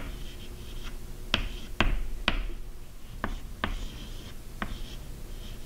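Chalk writing on a chalkboard: faint scratching of the strokes, broken by several sharp, irregularly spaced taps as the chalk strikes the board.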